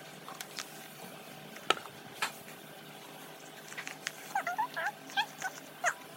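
Homemade slime being kneaded and squeezed by hand, faint: a couple of sharp clicks, then from about four seconds in a run of short squeaky squelches as trapped air pops out.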